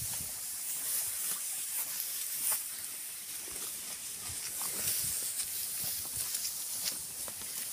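Dry grass rustling and crackling underfoot in irregular short ticks as someone walks through tall grass, over a steady high hiss.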